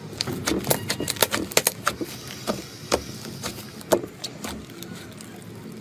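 Slime being squished and pressed by hand, making irregular sharp clicks and pops. They come thick and fast at first and thin out after about two seconds.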